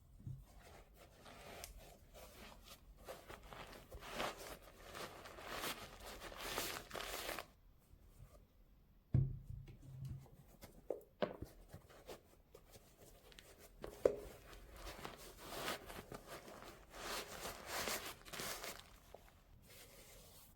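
Shoe-box packaging being handled and unpacked: paper and wrapping rustling and crinkling in long stretches, with a few sharp knocks against the box.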